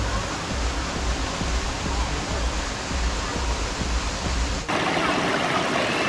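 Stream water running over a rocky bed, with a low uneven rumble underneath. About four and a half seconds in, the sound cuts abruptly to a small cascade splashing between boulders, brighter and a little louder.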